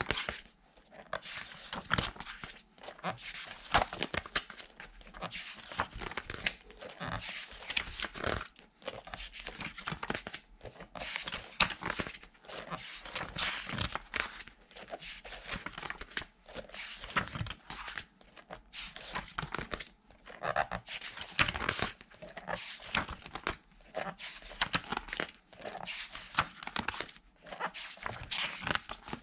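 Pages of a large art book with glossy paper being flipped one after another by hand: repeated, irregular paper swishes and rustles with short pauses between turns.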